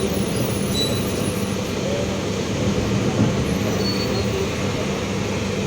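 Mercedes-Benz OF-1721 Bluetec 5 bus running on the road: a steady diesel and drivetrain drone with a constant hum, the differential growling.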